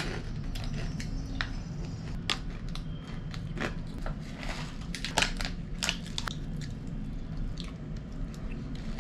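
Crunchy Boy Bawang snack mix being bitten and chewed, with irregular sharp crunches throughout.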